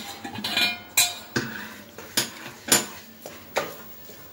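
Wooden spatula stirring a thick besan and sugar-syrup mixture in a metal kadai, knocking and scraping against the pan about six times.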